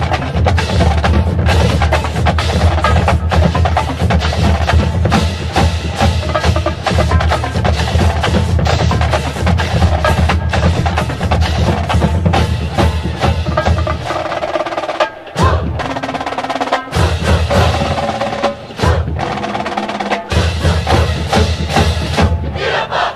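Percussion-heavy music with a fast, driving drum beat and no singing, broken by a few brief drops near the end.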